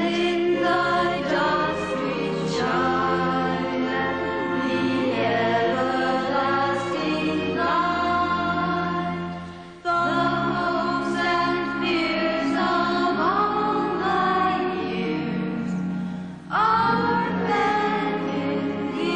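Voices singing traditional Christmas carols with musical accompaniment, in sustained gliding notes. The music dips briefly about ten seconds in and again about sixteen seconds in, then comes back in.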